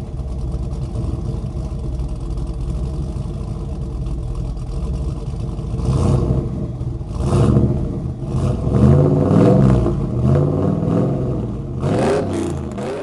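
Vehicle engine sound effect running with a steady low rumble, revving up and down repeatedly in the second half.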